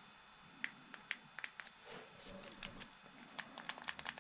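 Faint, scattered small plastic clicks and taps from handling the opened Xbox controller as replacement thumbsticks are pressed onto its analog stick shafts, coming thicker toward the end.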